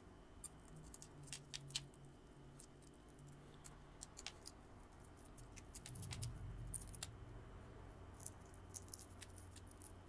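Faint crackling and scattered small clicks of eggshell being picked off a soft-boiled egg by hand, the bits of shell dropping onto a paper plate.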